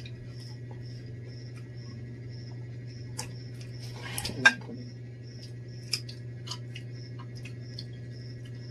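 Plates and cutlery clinking on a table a few times, loudest about four and a half seconds in. Under it a steady low hum and an insect's regular chirping, about two to three chirps a second.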